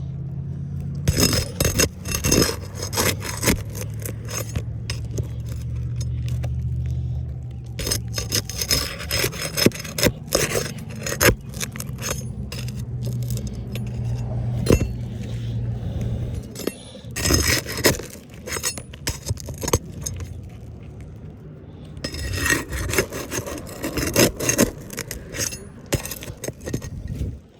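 Repeated scraping and rubbing strokes, with a steady low hum underneath that stops about two-thirds of the way through.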